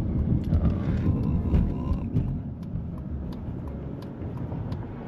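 Car driving, heard from inside the cabin: a low road and engine rumble with scattered light clicks and rattles, growing quieter over the last few seconds.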